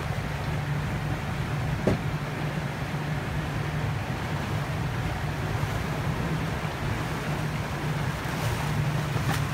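A boat's engine running steadily under way, with the rush of water and wind over the hull. There is a single short knock about two seconds in.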